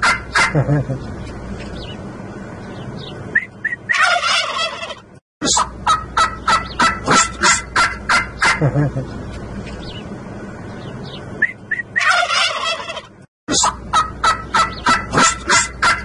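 Domestic turkey toms gobbling: bursts of fast rattling gobbles with pauses between them, the calls of strutting males. The sound cuts out briefly twice.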